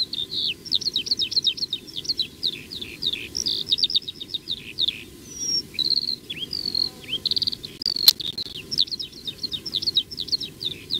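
Small birds chirping and twittering in quick, varied high chirps, trills and short falling whistles, with a steady low hiss underneath. A single sharp click comes about eight seconds in.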